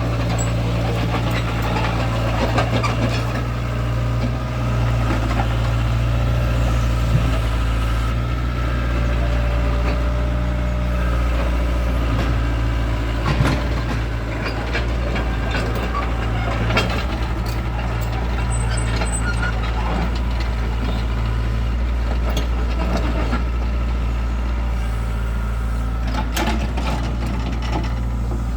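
Excavator's diesel engine running steadily, with a few short knocks and clanks from the machine at work.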